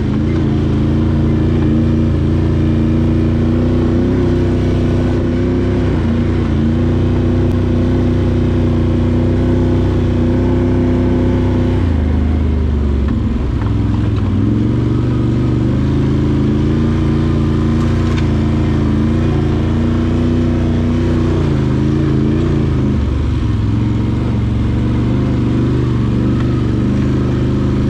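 Can-Am Outlander 850 XT ATV's V-twin engine running while riding, a steady engine note that shifts briefly twice, about twelve and twenty-three seconds in.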